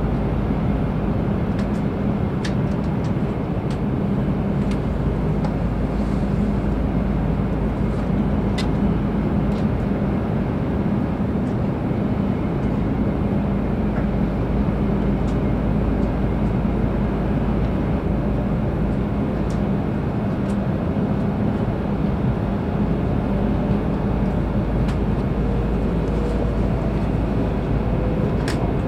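Steady cabin noise inside an E7-series Hokuriku Shinkansen pulling out of the station and picking up speed: a low rumble with a constant hum, a few faint clicks, and a faint rising whine near the end.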